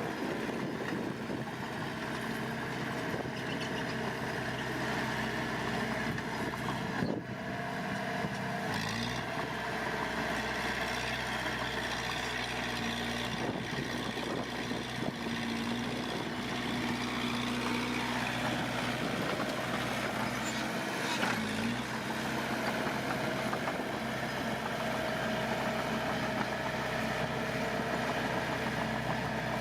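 Heavy diesel engines of earthmoving machinery running steadily, with brief changes in the engine note a few times.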